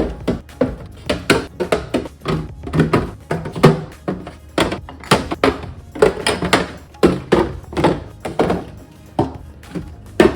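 Frequent knocks and thunks of containers and bottles being set down and moved around on fridge shelves, two or three a second and irregular, over background music.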